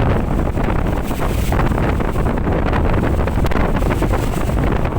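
Wind buffeting the microphone on a moving boat: a loud, steady rumble.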